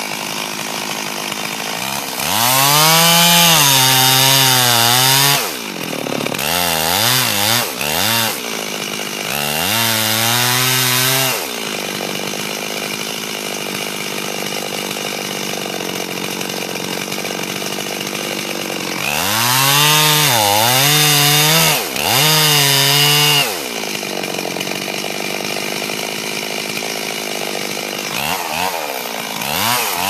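Stihl two-stroke chainsaw cutting into a tree trunk to fell it: the saw idles steadily, then opens to full throttle in bursts of a few seconds, four or five times, dropping back to idle between cuts. It revs up again near the end.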